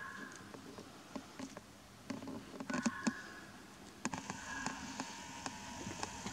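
Fox howling: a brief call at the start, then a longer, drawn-out, slightly wavering call from about four seconds in. A few sharp clicks come around the middle.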